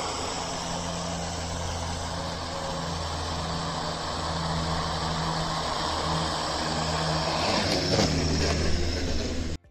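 Home-built quadcopter's four brushless motors and propellers whirring steadily, growing louder as it throttles up and lifts off about eight seconds in. The sound cuts off suddenly near the end.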